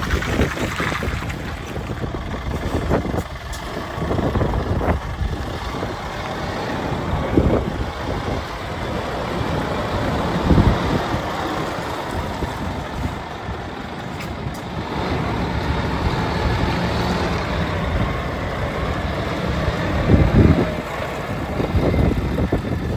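Wind buffeting the microphone in uneven gusts over a low, steady vehicle engine rumble.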